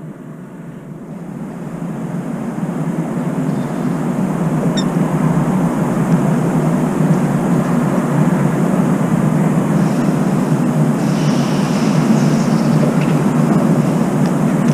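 Steady low rumble of distant city traffic, swelling over the first few seconds and then holding level, with one faint high bird chirp about five seconds in.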